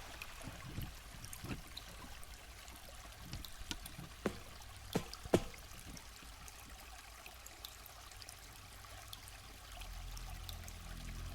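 Faint underwater ambience: a steady low rumble with scattered sharp clicks and trickling water. A low hum swells near the end.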